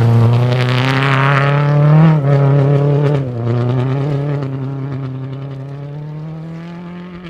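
Rally car engine at full throttle passing close. It shifts up twice in the first few seconds, then pulls away with its pitch climbing steadily as it fades.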